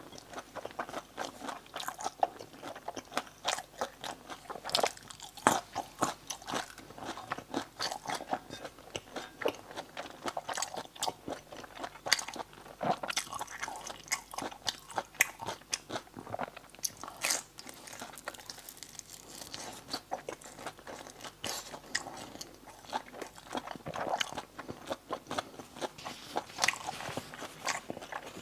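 Close-miked eating sounds: a person biting and chewing a glazed, sausage-like piece of braised meat, with many irregular sharp clicks, wet smacks and crunches, thinning out a little in the middle.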